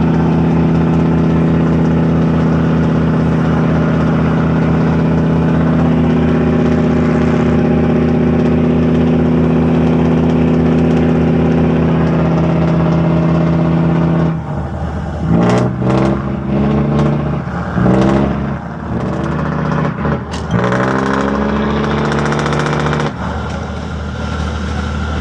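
A fishing boat's inboard engine running loud and steady at high throttle. About fourteen seconds in, its pitch starts rising and falling again and again as the throttle is worked, with a few sharp knocks. After about nine seconds it settles to a steadier, lower run.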